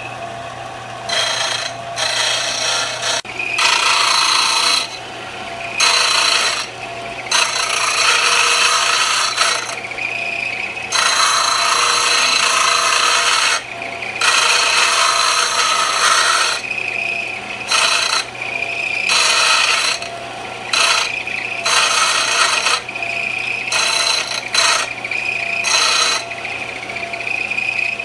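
A running power grinder or sander smoothing a forge-welded mokume gane billet: repeated gritty passes of one to three seconds each as the metal is pressed on and lifted off, over a steady motor hum and whine.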